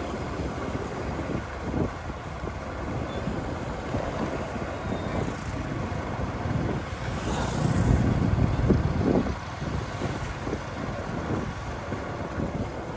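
Wind buffeting the microphone and road noise of a ride through city traffic, with a louder low rumble about eight seconds in.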